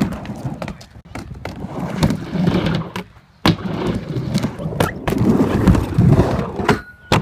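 Skateboard wheels rolling on a wooden mini ramp, the rumble swelling and fading with each pass, with several sharp clacks and knocks of the board on the ramp.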